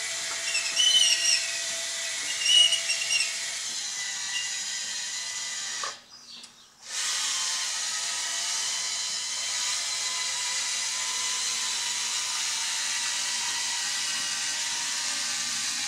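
Electric drive motors and gearboxes of a radio-controlled 1:16 Bruder CAT D11 bulldozer conversion whining steadily as it crawls and pushes loose material. A few short high-pitched squeals come in the first three seconds, and the sound cuts out briefly about six seconds in.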